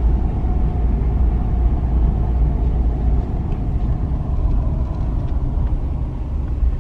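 Steady low rumble of engine and road noise heard from inside a car driving slowly, easing a little near the end.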